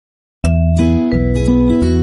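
Silence, then background music starts suddenly about half a second in, with a deep bass line and held notes.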